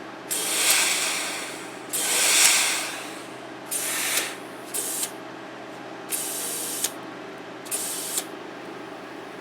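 Compressed air hissing in six separate bursts, the first two longest and the rest shorter, as a small inner tube in a lawn-mower-size tire is inflated from an air line.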